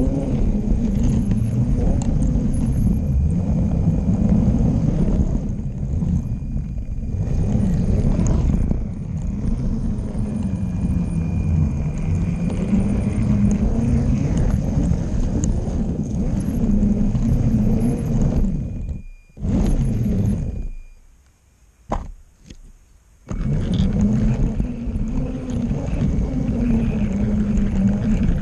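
A motorized LEGO train running on plastic track, its motor and wheels making a steady rumble with a wavering whine. About two-thirds of the way through the sound drops away almost to nothing for a few seconds, with a single click, then the rumble comes back.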